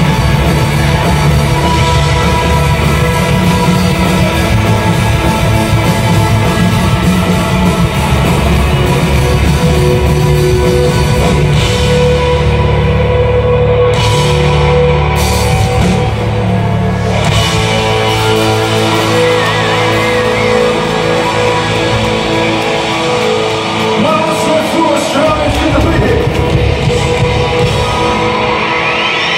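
Loud rock music with electric guitar, drums and singing, played from a stage on the field through the stadium's sound system and heard from the stands. The heavy bass drops away about halfway through.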